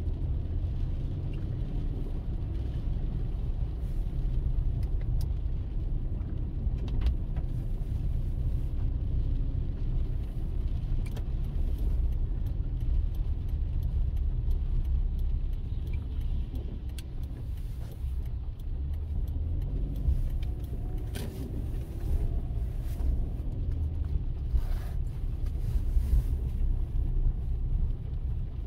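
A car driving, heard from inside the cabin: a steady low rumble of road and engine noise, with scattered light clicks and ticks.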